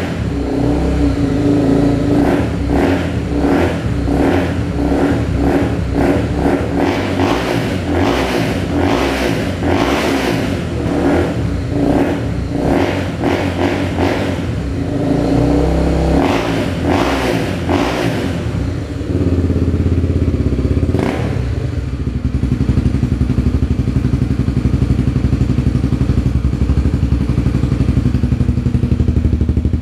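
Honda CB300R single-cylinder motorcycle engine running loud through an aftermarket Coyote Five exhaust tip on the stock header. The throttle is blipped again and again in quick revs, and about two-thirds of the way through the engine settles to a steady, evenly pulsing idle.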